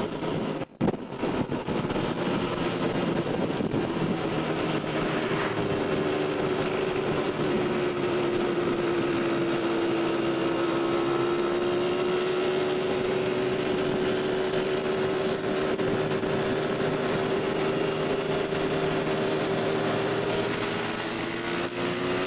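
ATV (quad bike) engine running at a steady cruising speed: one constant drone that sags a little in pitch through the middle, then climbs near the end as the throttle opens. There is a brief break in the sound about a second in.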